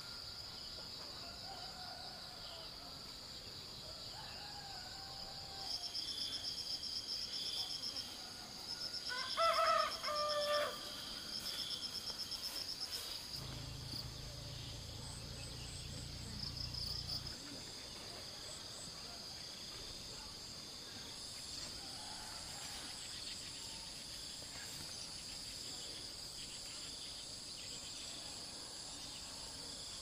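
Countryside ambience: a steady high insect drone with bursts of pulsing insect chirps, and a rooster crowing about nine seconds in, the loudest sound. A few faint bird calls come in the first seconds.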